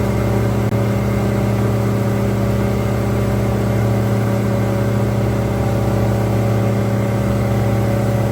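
Boat engine running steadily while underway, an even hum with several fixed tones that does not change in pitch.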